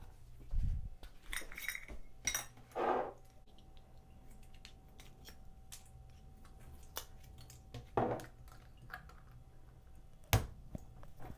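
Kitchen containers and utensils being handled: scattered clinks, taps and short rustles, with a low thump near the start and a sharp click near the end, as a new cinnamon container is opened.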